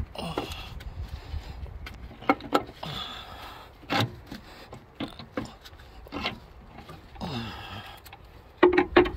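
Wrench and steel parts clinking and knocking irregularly as bolts are worked loose on the rocker arm housing of a Caterpillar 3406 diesel head, with a quick run of louder knocks near the end.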